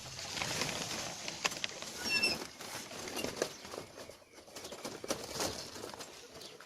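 Ducks being fed: rustling and pattering as the chopped greens and grain are tipped out and pecked at, with a short run of high chirps about two seconds in.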